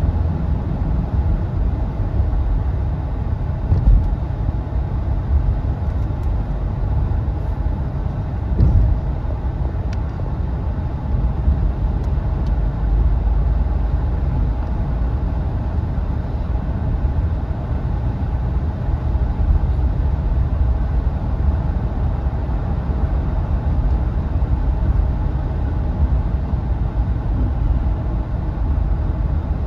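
Steady low rumble of a car on the move, engine and road noise, with a couple of brief bumps, one about 4 seconds in and one about 9 seconds in.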